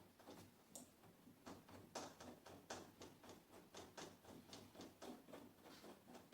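Faint, quick clicking of a hand tool tightening the outrigger bracket screws, about three clicks a second and somewhat uneven.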